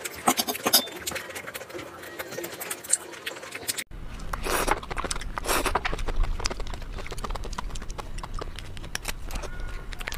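Close-up eating sounds: chewing with many short wet mouth clicks. About four seconds in, the sound changes abruptly to a second recording with a low hum underneath and the same kind of clicking chewing.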